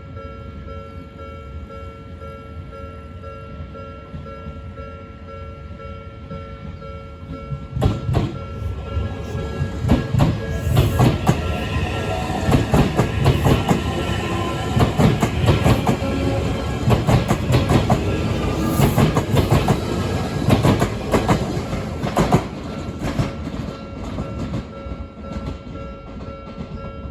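Japanese level-crossing alarm ringing steadily; about eight seconds in a train runs over the crossing, its wheels clacking over the rail joints for some fifteen seconds, then fading away while the alarm keeps ringing.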